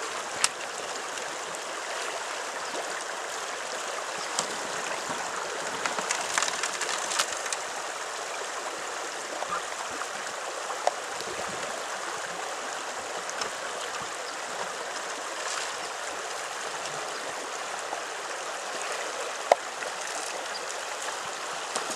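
Shallow river running steadily over a rocky riffle, with a few sharp knocks scattered through, the loudest near the end.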